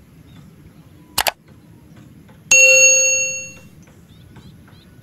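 Subscribe-button sound effect: a quick double mouse click, then about a second later a bright bell ding that rings out and fades over about a second.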